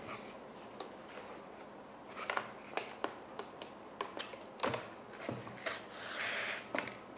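Paper pages being handled and stitched by hand: a run of small rustles, taps and clicks as the stack is shifted and a needle is worked through a hole, with a longer soft rustle a little before the end.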